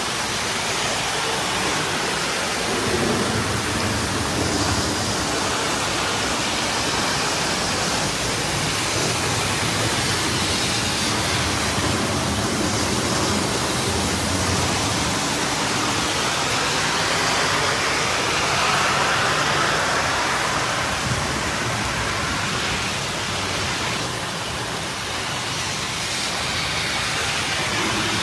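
Heavy rain and rushing floodwater: a steady, even rushing noise with no breaks.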